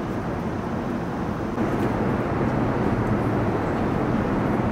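Steady cabin noise of an Airbus A350-900 in cruise, a broad rush of airflow and engine noise heard from inside the cabin. It steps up slightly in loudness about a second and a half in.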